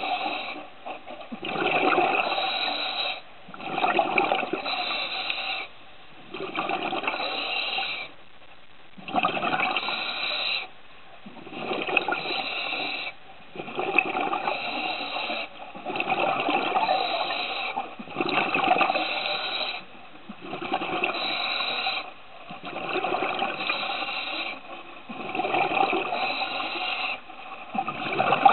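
Scuba diver breathing through a regulator underwater: rhythmic rushes of air and bubbles, about one every two seconds, with short pauses between breaths.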